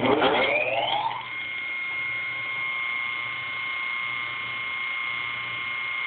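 Old General Electric electric motor with a grinding wheel on its shaft, spinning up to speed with a rising whine over about the first second, then running steadily with a hum and a high whine. It has cranked right up after sitting unused for about 25 years.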